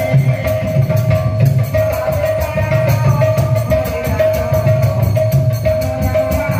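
Live devotional folk music: a barrel drum keeps a quick, steady beat with jingling metal percussion over a held harmonium note.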